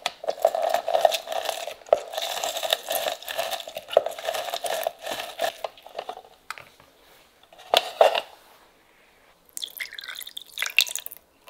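A lemon half is pressed and twisted on a plastic citrus reamer, squishing and crackling as the juice drips into the jug below, with one more brief squeeze just before eight seconds. Near the end, the lemon juice is poured into a bowl of yogurt and egg yolks.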